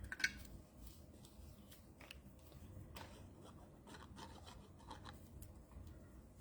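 Faint rustling and light taps of paper and cardstock being handled and pressed down as a layer is glued onto a card, with one sharper click a fraction of a second in.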